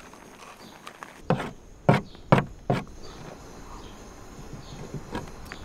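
Kitchen knife cutting through cherry tomatoes onto a plastic cutting board: four sharp knocks in quick succession, about half a second apart, then a few fainter taps near the end, over a steady low hiss.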